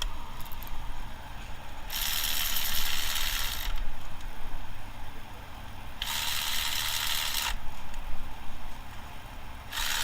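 Ratchet wrench being cranked in three bursts of rapid clicking, each about one and a half seconds long.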